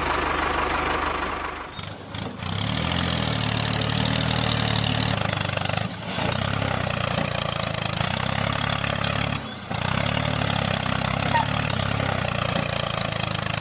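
Mini truck's engine sound running steadily, dropping out briefly about two, six and nine and a half seconds in.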